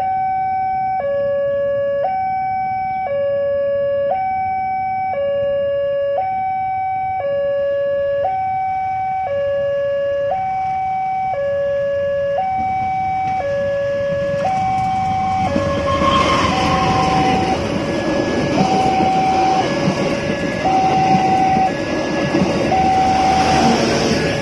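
A two-tone electronic warning alarm alternating high and low about once a second, steady in pitch. About 15 seconds in, a CC 201 diesel-electric locomotive and its coaches arrive and pass close by; the engine and wheel noise grows loud over the alarm.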